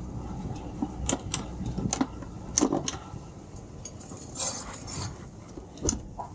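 Twin outboard motors idling low and steadily, with a series of sharp clicks and knocks from the towline and the helm controls being handled aboard. A short rush of hiss comes a little past the middle.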